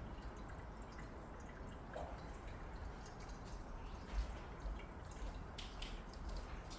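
Cat lapping water with its tongue: a run of small, irregular wet clicks and drips.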